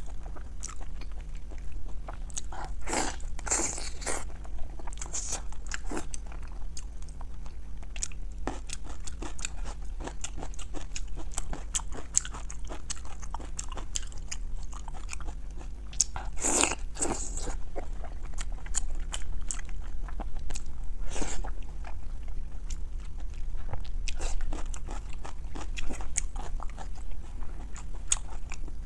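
Close-miked eating: biting and chewing boiled pork belly, with many small wet mouth clicks and smacks, louder bites about three and sixteen seconds in.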